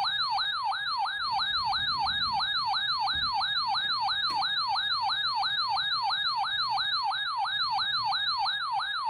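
Electronic alert siren: a tone that sweeps rapidly downward and repeats about three times a second without a break, sounding the alarm for a severe thunderstorm warning on weather radio.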